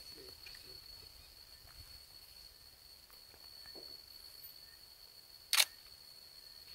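A single camera shutter click about five and a half seconds in, over a steady high-pitched tone and a few faint scattered ticks.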